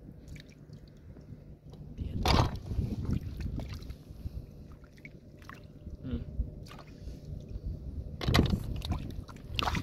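Hands sloshing and groping in shallow muddy water, with two louder splashes, one about two seconds in and one near the end.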